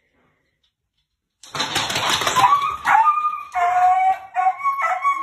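Dog yelping and whining in a panic, a run of short, high-pitched yelps after a sudden noisy outburst.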